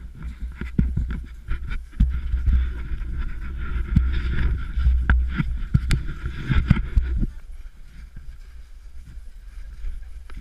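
Wind buffeting the microphone of a rider-worn action camera as a low rumble, with scattered knocks and rustles from the camera jostling. It eases off about seven seconds in.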